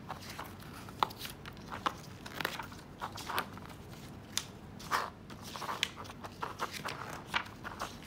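Paper pages of a printed booklet being handled and turned: irregular short rustles and soft taps.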